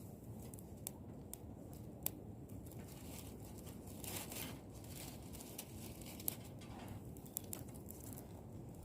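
Things being handled close by: rustling and crinkling, louder about four seconds in, with a few sharp clicks.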